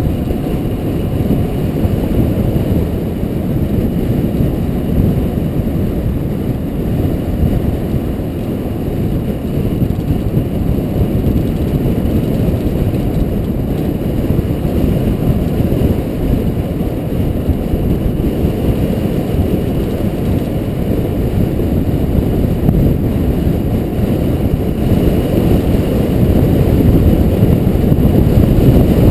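Wind buffeting the microphone of a bicycle-mounted camera during a fast downhill ride: a steady low rush that gets louder near the end as speed builds.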